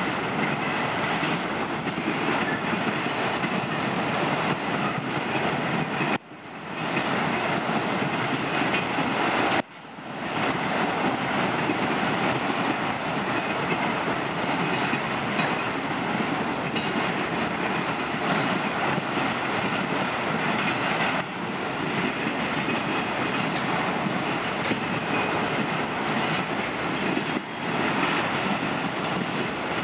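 Freight train of enclosed autorack cars rolling past at steady speed: a continuous rumble and clatter of steel wheels on the rails, with clickety-clack from the wheels crossing rail joints. The sound drops out sharply twice, about six and ten seconds in, and swells back within a second.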